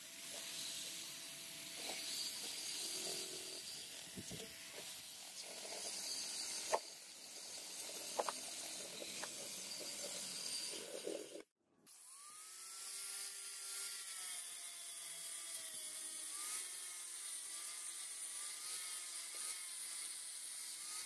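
A cordless drill spinning a small grinding bit against a brass knife-handle fitting, with a few sharp knocks. After a short break a little past halfway, a power-driven sanding wheel runs over the wooden handle with a whining, wavering pitch.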